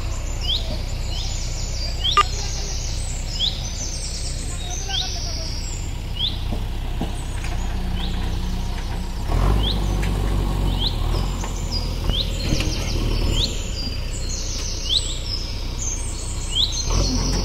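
Small birds calling over and over, short sweeping chirps every half second or so mixed with higher chattering notes, over the steady low hum of a diesel engine running. The engine grows louder about halfway through and again near the end.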